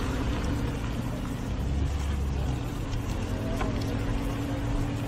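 Lamborghini Huracán's V10 engine running at steady revs as the car drives, a level drone with no big rev rise.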